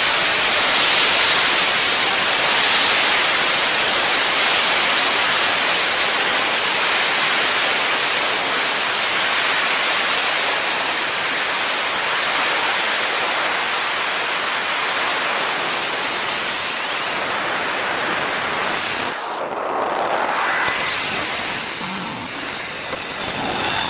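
Steady, even rushing hiss on a high-flying rocket's onboard camera audio, like static. It eases slightly over time and changes character about nineteen seconds in.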